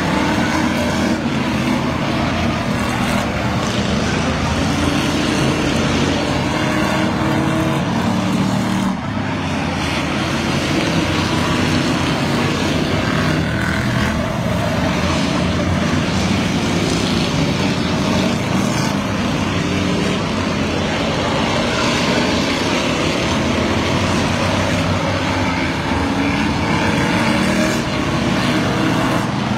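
A pack of Ford sedans racing on a figure-8 track, several engines running loud together. Their pitch keeps wavering up and down as the cars accelerate and lift through the turns, with a brief dip about nine seconds in.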